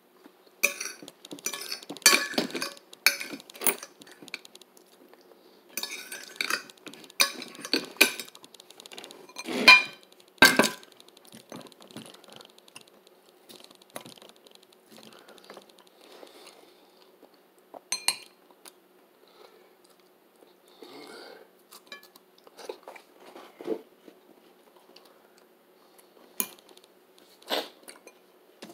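Eating a stuffed bell pepper: fork and plate clinking in bursts of clatter, loudest about ten seconds in, with chewing between and fewer clinks later.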